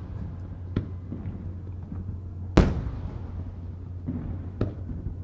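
Aerial firework shells bursting. The loudest bang comes about two and a half seconds in and echoes away slowly. Smaller bangs come about a second in and twice more near the end, over a steady low background rumble.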